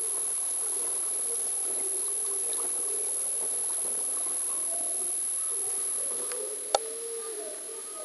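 Swimming-pool water heard through a submerged camera: a steady muffled hiss with a constant high-pitched whine and faint wavering tones. A single sharp click comes near the end, as the sound grows a little quieter.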